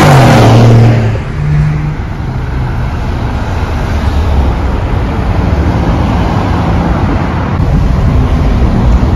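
Cars driving past on a road. A loud engine passes in the first second, its note falling away, then a steady low rumble of more cars rolling by.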